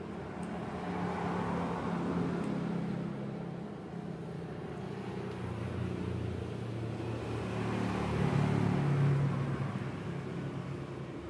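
Passing motor vehicle engine noise, a low hum that swells and fades, loudest about two seconds in and again near the end.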